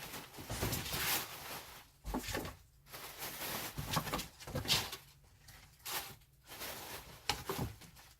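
Irregular rustling and bumping of a cardboard box and its packing, in short noisy bursts, with a sharp knock about seven seconds in.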